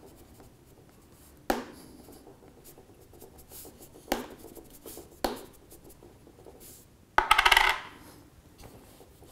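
A coin scraped and tapped against the glass back of a Huawei Nova 3i in a scratch test. There are three sharp clicks, then a louder rattling scrape lasting about half a second, about seven seconds in.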